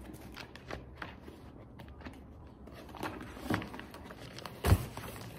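Paper documents being handled and sorted on a desk: faint rustling and small taps, with a louder thump of a stack being set down about four and a half seconds in.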